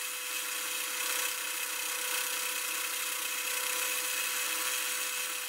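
Hafco AL250G metal lathe running with a steady whine while abrasive cloth is held against the spinning steel part, giving a continuous rubbing hiss as the Morse taper is polished.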